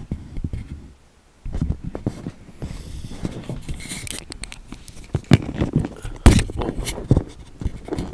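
Handling noise from the camera being dragged and repositioned: repeated knocks, clicks, rubs and scrapes right on its built-in microphone, with the sound cutting out briefly about a second in and a few sharper knocks in the second half.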